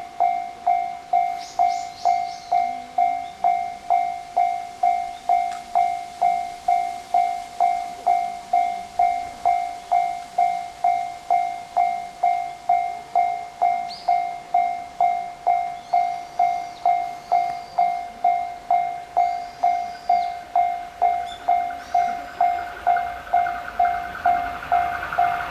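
Japanese railway level-crossing warning bell ringing steadily, about two clangs a second on one pitch: the crossing is closing for a train. Near the end the noise of the approaching train rises under it.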